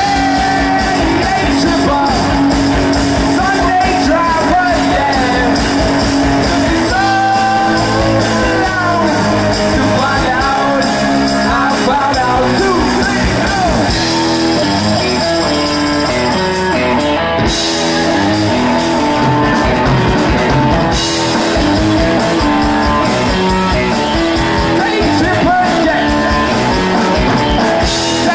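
Rock-and-roll band playing loudly, with a singer, electric guitars and a steady beat.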